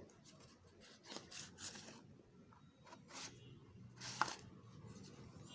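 Faint rustling and rubbing of a phone's cardboard box and paper accessory packaging being handled, with a few short scrapes and a sharper tap about four seconds in.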